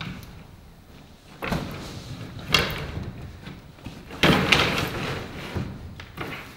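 Large paper posters rustling and crackling as they are slid off a pile, lifted and unfolded, with three louder sweeps of paper about a second and a half, two and a half and four seconds in.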